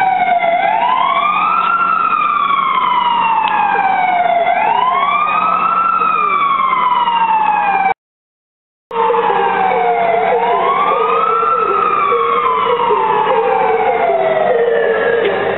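Fire engine siren wailing in slow sweeps, each rising quickly in pitch and then falling slowly, three times over, with a break of about a second halfway through.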